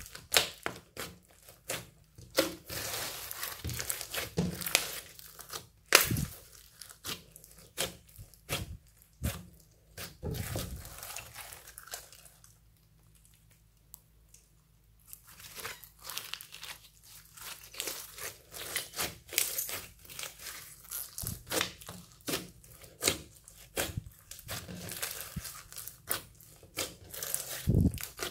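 Hands kneading and pressing floam slime packed with foam beads and glitter, giving a dense run of crackling clicks and pops. It goes nearly quiet for a few seconds about halfway through, then the crackling resumes.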